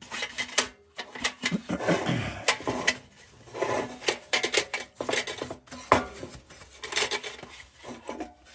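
Metal lantern parts handled at a workbench: irregular clinks and knocks of metal, with short stretches of scraping and rubbing.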